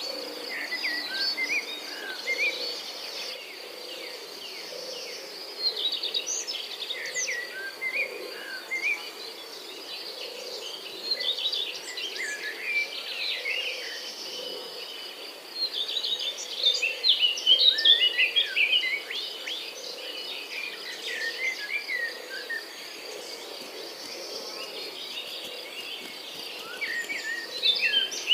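A chorus of birds chirping and singing, busiest in the middle, over a steady high insect trill, with a soft low pulse repeating about once a second underneath.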